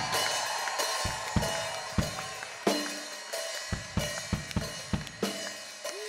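Free-improvised drumming on a sparse kit: irregular single strikes on snare, bass drum and cymbal, with a few sustained ringing tones underneath. The music slowly gets quieter.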